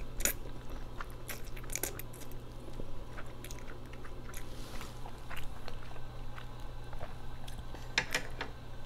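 Close-miked eating of thick noodles: scattered wet clicks and smacks of chewing and biting, with a short slurp near the middle.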